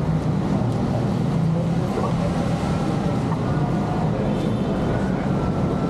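Pushchair wheels rolling over paving tiles: a steady low rumble carried through the frame into the stroller-mounted camera.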